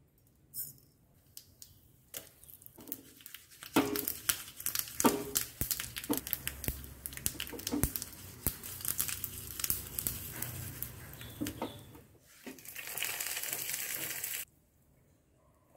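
Mustard seeds spluttering in hot oil in a small iron tempering pan, a dense run of sharp pops and crackles as the tempering of dried red chillies, cumin and curry leaves fries. Near the end comes a steady sizzle of about two seconds that cuts off suddenly.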